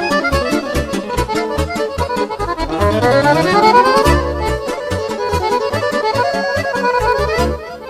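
Balkan folk instrumental music: an accordion playing fast melodic runs over a steady bass and drum beat, with a long rising run about three seconds in.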